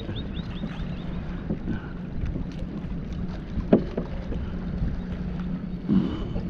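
Wind noise on the microphone over water sounds around a fishing kayak. A run of short high chirps fades out about a second in, and there is a sharp knock a little past halfway.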